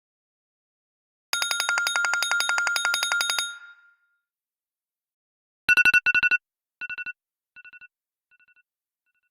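Two iPhone ringtones. First a rapid trilling ring of evenly repeated tones for about two seconds that fades out, then after a pause a short double beep that repeats as echoes, each quieter than the last until it dies away.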